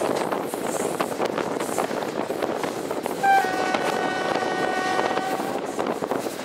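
Train horn giving one long blast of about two seconds, a steady chord starting about halfway through: the Polish Rp1 'Baczność' (attention) warning signal. Under it, the steady running noise of the train with faint wheel clicks on the rails.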